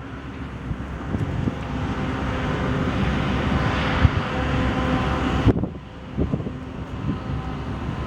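Outdoor motor-vehicle engine noise with a steady hum that grows louder, mixed with wind rumbling on the microphone; the sound drops off abruptly about five and a half seconds in.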